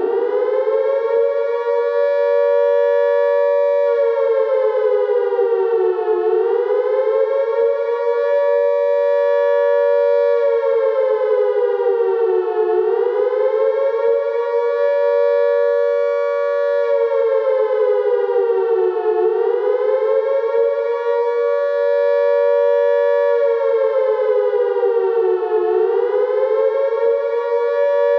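British-style World War II air raid siren sounding a wailing warning. It holds a high note, then sags in pitch and climbs back up about every six and a half seconds, four times. The rise and fall is that of an air raid alert signal.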